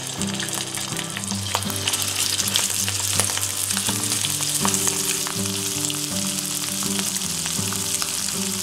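Chicken thighs frying in hot olive oil in a nonstick frying pan, a steady sizzle with many small crackles that grows a little louder in the first couple of seconds as more pieces are laid in skin side down. Soft background music plays underneath.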